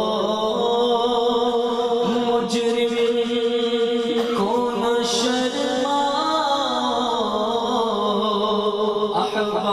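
A man singing a naat, an Urdu devotional song, solo into a microphone over a PA, drawing out long, slowly bending notes.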